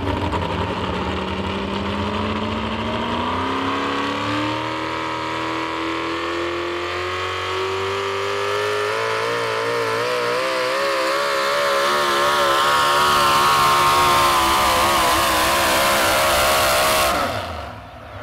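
Supercharged V8 of a modified 4x4 pulling truck at full throttle under load, dragging a weight-transfer sled. Its note climbs steadily, then wavers up and down, sags a little and cuts off suddenly near the end.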